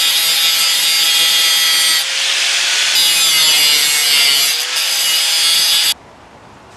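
Small angle grinder grinding the end knobs off a metal plate: a loud, high-pitched grinding whine whose tone changes briefly about two seconds in. It cuts off abruptly near the end.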